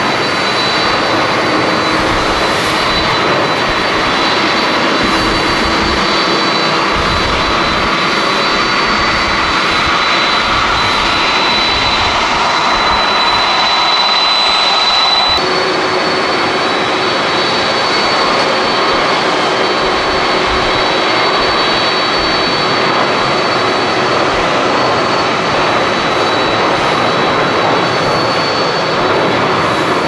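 Boeing 737-800 airliners' twin jet engines at takeoff power, a loud steady rush with a thin high whine on top. The sound changes abruptly about halfway through as a second 737 on its takeoff roll replaces the first, with gusty rumble from strong wind on the microphone underneath.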